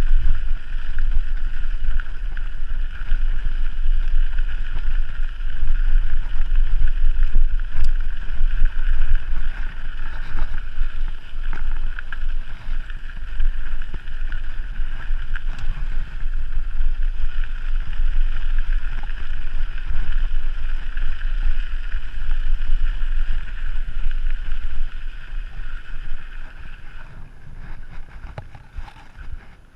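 Wind buffeting the microphone on a moving mountain bike, a loud, steady rush with a low rumble, easing off near the end as the bike slows.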